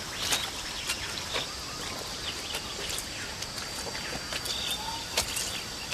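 Tropical rainforest ambience: a steady high insect drone with scattered short bird chirps, broken by a few sharp clicks and snaps, the loudest near the start and near the end.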